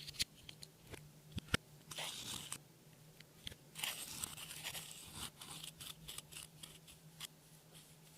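Hands squeezing and stretching slime: sticky clicks and pops, with two longer crackly squishes, the longer one starting about four seconds in.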